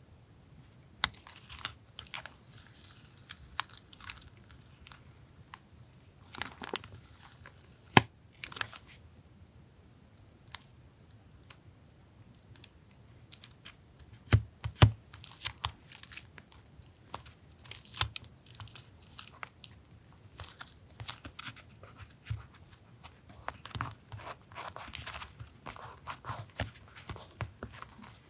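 Paper being torn and crinkled in irregular bursts, with scattered light ticks and taps as paper stickers are handled; one sharp click about eight seconds in is the loudest.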